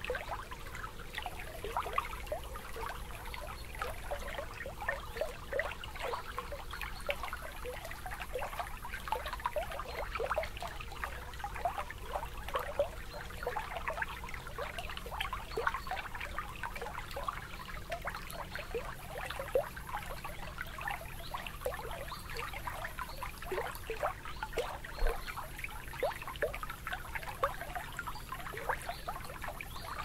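Water gently lapping and trickling at the water's edge: a continuous patter of many small gurgles and splashes.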